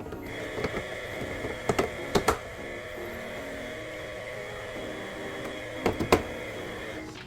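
A steady machine whine with several constant tones, starting just after the start and cutting off near the end, broken by a few sharp clicks and knocks about two seconds in and again about six seconds in.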